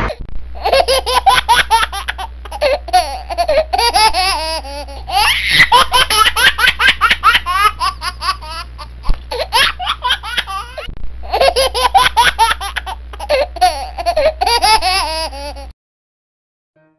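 A person laughing hard, high-pitched and in long runs of quick bursts. The laughter cuts off suddenly near the end.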